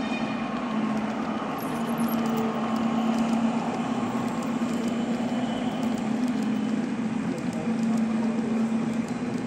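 Model electric locomotive hauling a rake of passenger coaches along the layout track: a steady motor hum with the rolling rumble of small wheels on rail, over even background noise.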